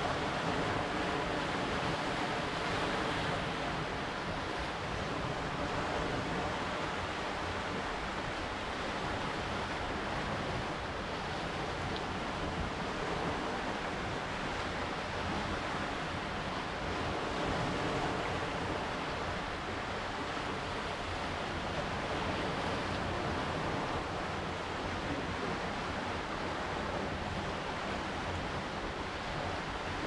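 Lake Superior waves washing onto a rocky shoreline: a steady wash that swells and eases gently every few seconds, with wind blowing over the microphone.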